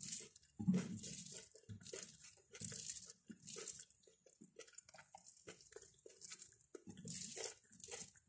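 Fingers squeezing and mixing rice with dhal and curries on a glass plate: a run of short, irregular wet squelching and sticky sounds, several each second.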